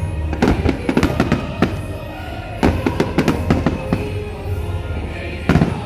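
Fireworks bursting in quick clusters of bangs and crackles, with music playing underneath; the loudest burst comes near the end.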